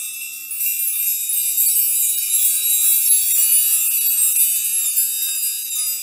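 High, shimmering sparkle chimes, like wind chimes: a dense wash of many tinkling tones with no low end, holding steady and easing off slightly near the end.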